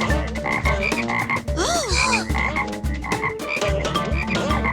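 A cartoon ice cream truck's sound system, rigged with noise-making gadgets, playing its call as a weird, unappealing jumble: low thumps in a steady beat, quick clicks and rising and falling whistle-like glides. The gadgets are mistuned, and the sound does not call up ice cream.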